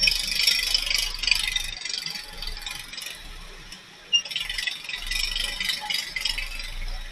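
Rattling of a scooter-mounted camera and its mount as the scooter rolls slowly through traffic. The rattling eases briefly and there is one sharp click about four seconds in, then the rattling resumes.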